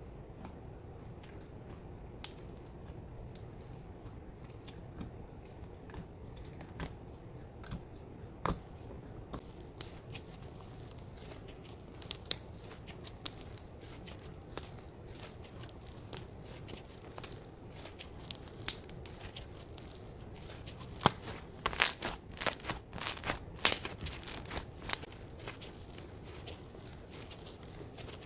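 White slime full of foam beads being pressed and squeezed by fingers: scattered sharp crackles and pops over a faint steady hiss, coming thick and fast about three-quarters of the way through.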